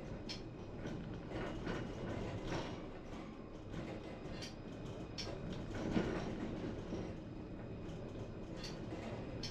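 Tram running slowly, a steady rumble broken by scattered clicks, knocks and creaks from the wheels and car body, with a louder knock about six seconds in.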